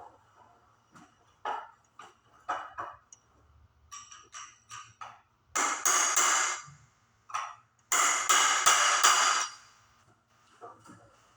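Metal tool tapping and clattering against a stuck reverse-thread nut on a BMX bike: scattered light clicks and ringing taps, then two longer runs of rapid metallic strikes. The nut is not coming loose.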